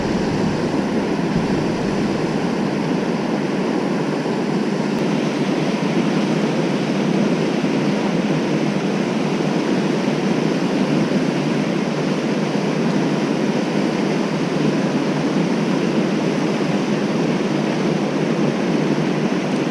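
Steady rushing of water pouring over a low-head dam and churning in the white water below it.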